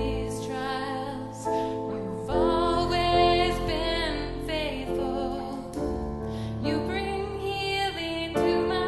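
Worship music: a singer holds drawn-out notes over sustained keyboard chords.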